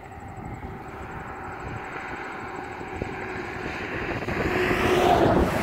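A vehicle passing close by, its noise swelling to a peak about five seconds in, then dropping off sharply.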